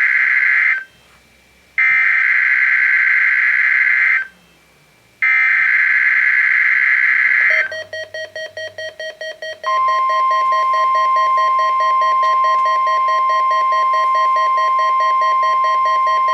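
NOAA Weather Radio EAS/SAME header bursts for a Required Weekly Test: the tail of one harsh data burst, then two more, each about two and a half seconds long with a short gap between. A lower tone then beeps rapidly, about five times a second. About halfway through, a steady high tone, the 1050 Hz warning alarm tone, comes in and holds, with the lower tone sounding steadily beneath it.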